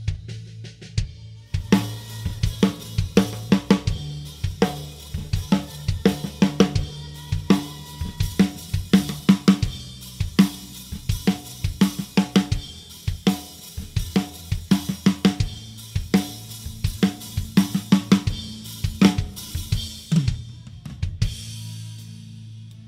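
Recorded drum kit of a dangdut band played back for a virtual soundcheck: kick, snare, hi-hat and cymbals. It opens with a few sparse hits, the full kit comes in with a steady beat about a second and a half in and stops near the end, over a steady low note.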